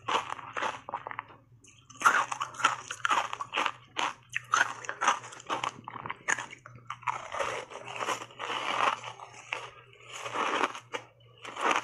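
Ice chunks coated in matcha powder being bitten and chewed close to a lapel microphone: loud, irregular crunching, bite after bite, with a brief pause about a second in.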